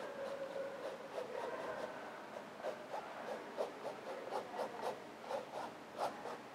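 Fine paintbrush stroking acrylic paint onto a stretched canvas: a faint, scratchy rub with each stroke, in a run of about a dozen short strokes starting a couple of seconds in.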